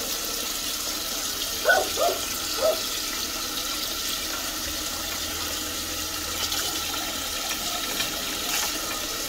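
Toilet tank refilling after a flush: water from the fill valve hisses steadily into the tank. A few light clicks come near the end as the flapper chain and clip are handled.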